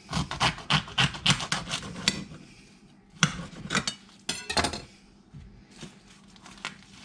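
A sharp knife sawing through the stalk end of a microwave-cooked ear of corn in its husk. There is a run of quick strokes for about two seconds, then two shorter runs of strokes a second or so later.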